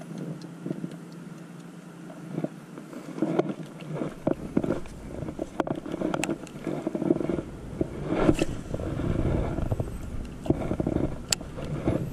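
Wind buffeting the camera microphone in gusts, coming in about four seconds in. Over it come irregular clicks and knocks from handling a baitcasting rod and reel.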